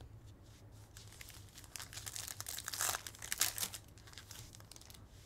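Foil trading-card pack wrapper crinkling and tearing as it is opened by hand: a run of crackles from about a second in until nearly four seconds, loudest around three seconds.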